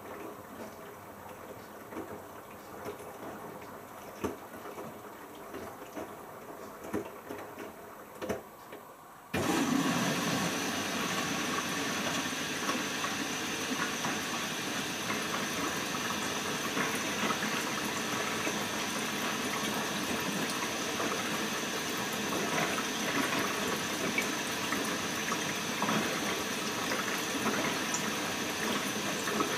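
Bosch Logixx WAS32461 washing machine in its final rinse: a few light drips and clicks, then about nine seconds in water suddenly starts rushing in and keeps flowing steadily as the machine fills.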